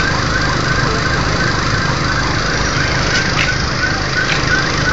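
An electronic alarm siren sounding a fast repeating pattern of short rising chirps, about two or three a second, over steady noise.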